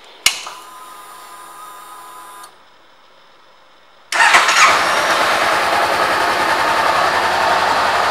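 Ignition key clicked on a 2013 Honda CB500X, its fuel pump humming for about two seconds as it primes; about four seconds in, the 471 cc parallel-twin engine starts and settles into a steady idle.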